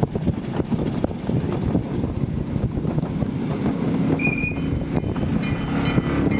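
7¼ inch gauge miniature ride-on railway train running, its wheels rattling and clicking over the rail joints. A brief high-pitched squeal comes about four seconds in.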